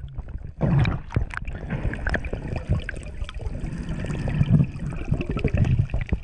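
Water sloshing, gurgling and splashing close to the microphone in uneven surges, with small knocks.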